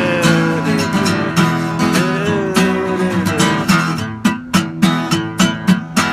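Acoustic guitar strumming in a country song's instrumental break: a gliding melody line over the first few seconds, then crisp, even strums about two or three a second.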